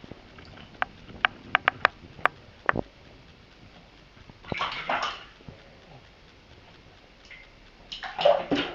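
Kitten splashing water in a bathtub: a run of sharp taps in the first three seconds, then two short splashes, one about halfway through and a louder one near the end.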